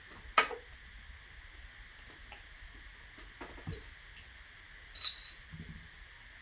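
A few sharp metallic clicks and clinks as a brass cleaning rod with a patch is handled and worked through a pistol barrel: the loudest about half a second in, a softer cluster around three and a half seconds, and one with a brief ringing near five seconds.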